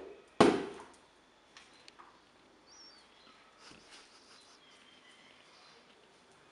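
A rubber party balloon knocked by a small dog's paw: a sharp knock right at the start and a louder hollow thump about half a second in that dies away quickly, followed by a few faint taps.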